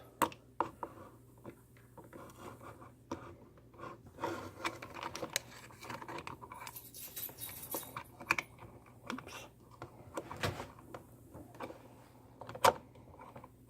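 Two small metal wrenches clicking and scraping against the parts of a WaterPik showerhead as it is screwed back together, with scattered taps and one sharper knock near the end.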